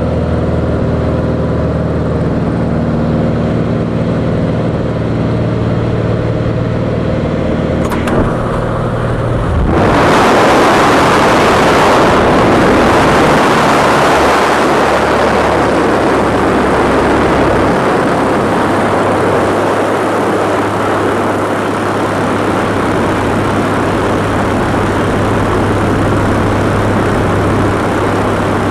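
Single-engine light plane's propeller engine droning steadily inside the cabin. About ten seconds in, the cabin door opens and a loud rush of wind over the microphone takes over, with the engine still droning underneath.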